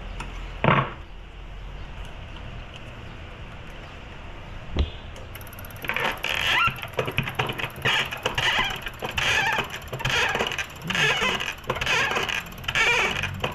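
Hand-pumped diesel injector tester being worked on a Toyota Fortuner fuel injector: a sharp click near the start and a thud a little before five seconds. From about six seconds in comes a run of quick, irregular spurts as the injector sprays under pressure.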